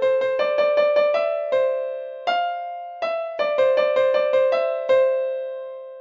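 Background music: an electric piano playing a melody of short struck notes in quick runs. The last note rings on and fades out near the end.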